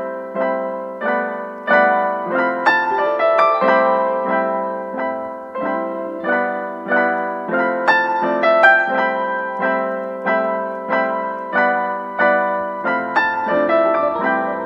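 Background music: a piano or electric piano playing a steady run of notes, a few per second, each ringing and fading.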